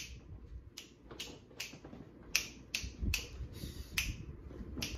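A person snapping their fingers, about ten snaps at roughly two a second, slightly uneven.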